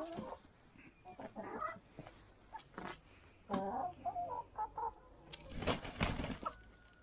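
Chickens clucking, with a short, loud flurry of flapping wings and scuffling about five and a half seconds in as two roosters fight.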